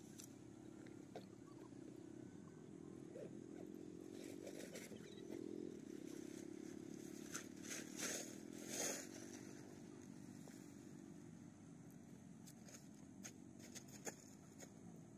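Plastic tarp crackling and rustling in short bursts as it is shaken out and spread on the ground, loudest a little past the middle. Under it runs the faint, steady low drone of a distant engine.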